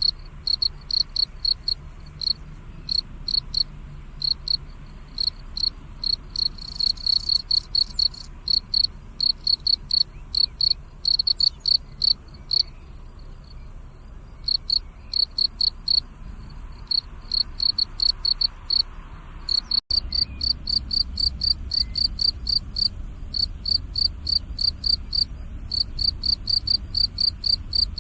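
Field cricket chirping: short, high-pitched chirps repeated about three times a second, with a few brief pauses in the song.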